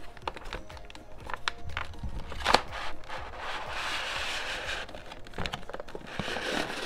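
Cardboard knife-set box being opened and its clear plastic blister tray of knives slid out: a few light clicks, a sharp snap about two and a half seconds in, then crinkling and rubbing of plastic against cardboard. Background music plays underneath.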